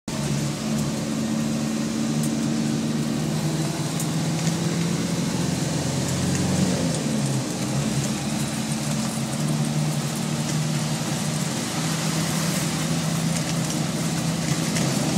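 Mitsubishi Jeep engine running steadily at idle, recorded to capture an abnormal noise; the deepest rumble eases about halfway through.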